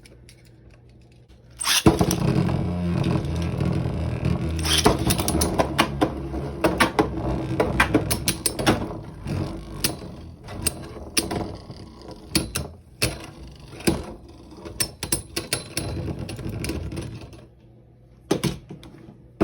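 Beyblade Burst spinning tops launched into a plastic stadium about two seconds in, then whirring and clashing with many sharp hits before winding down and stopping after about fifteen seconds. A couple of clicks follow near the end.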